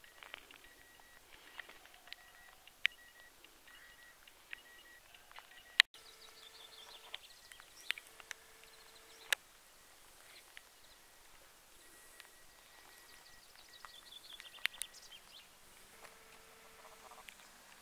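Faint outdoor ambience with short bird calls and a few scattered sharp clicks.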